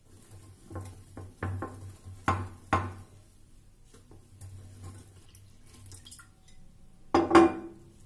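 Wire whisk beating dhokla batter in a glass bowl, its wires clinking against the glass: four sharp clinks in the first three seconds, then one loud ringing knock about seven seconds in.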